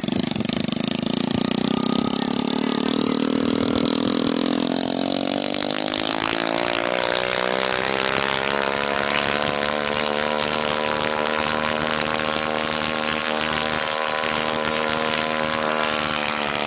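The engine of a homebuilt ultralight helicopter revving up during a main-rotor ground test run. Its pitch climbs over the first several seconds, then it runs steadily at high revs.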